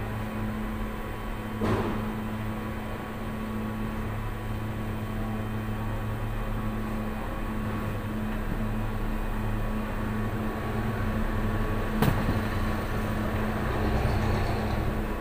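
Steady hum of running machinery with a constant tone, and two short sharp knocks, about two seconds in and near the end.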